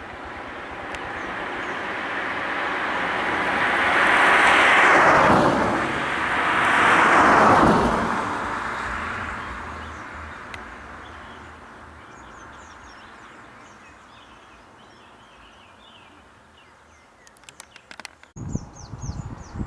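Two road vehicles passing close by in turn, each a swelling and fading rush of tyre and engine noise, the second about two and a half seconds after the first. Birds chirp faintly once they have gone, and a few knocks and low bumps come near the end.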